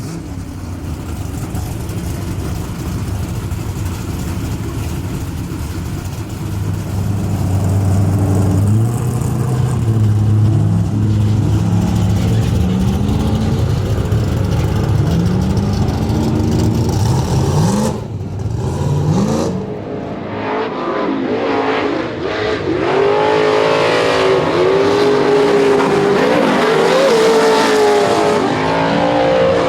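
Pro2 short-course race truck's Kroyer Racing V8 at full throttle, revving up again and again as it shifts through the gears and getting louder. It dips briefly about two-thirds of the way through, then comes back higher and louder, with quick rising revs near the end.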